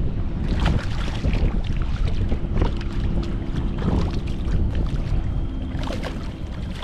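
Strong wind buffeting the microphone in a loud, steady low rumble, with irregular splashes of choppy water against the kayak.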